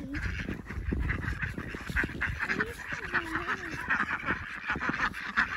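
A flock of ducks quacking rapidly and continuously, with low dull knocks underneath.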